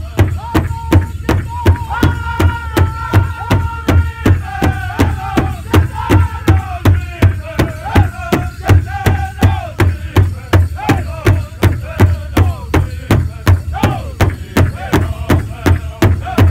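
Powwow drum group beating a large shared bass drum in a steady even beat, about three to four strokes a second, while the men sing a straight dance contest song in high, wavering voices.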